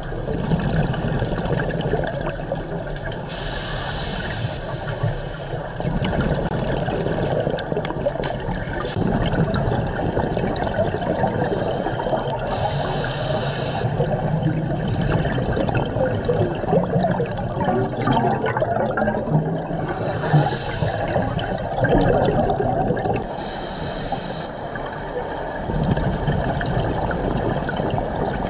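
Scuba diver breathing through a regulator underwater. A hissing inhale of about a second comes every several seconds, and between the inhales there is a long bubbling rush of exhaled air.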